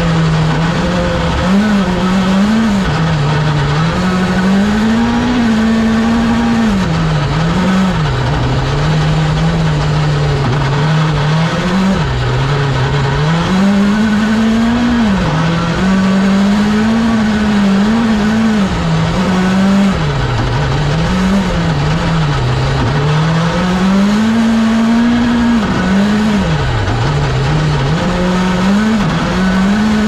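Hyundai i20 N Rally1 Hybrid rally car's 1.6-litre turbocharged four-cylinder engine heard from inside the cockpit, driven flat out: the engine note climbs and drops again and again as the driver accelerates, shifts and lifts.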